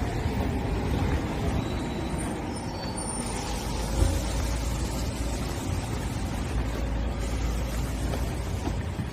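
Steady low rumble of a motor vehicle running, with one sharp knock about four seconds in.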